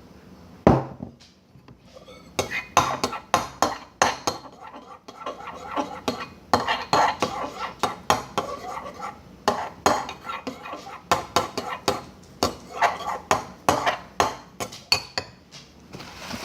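A spoon clinking and scraping against a bowl in quick, irregular strokes, stirring a thick slime mixture, after one sharp knock under a second in.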